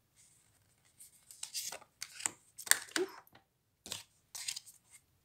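Tarot cards being handled: a series of short scrapes and slaps as the cards slide off the deck and are set down, the sharpest near the middle.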